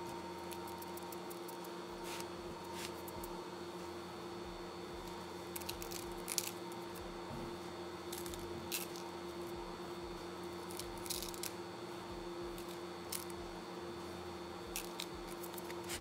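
Hands patting and pressing toasted ground rice onto salted fish in a plastic tub: faint soft squishes, rustles and small clicks scattered through, as the fish are coated for fermenting into pla ra. A steady low hum runs underneath.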